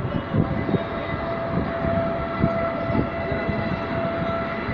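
Engine of a distant small aircraft running steadily on the ground: a constant high whine, with irregular low rumbles under it.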